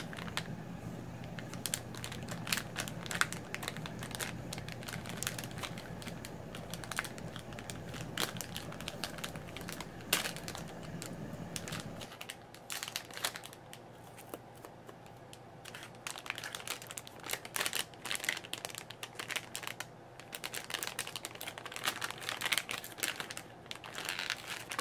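Crinkling of a metallized anti-static bag being handled and opened, in many irregular crackles.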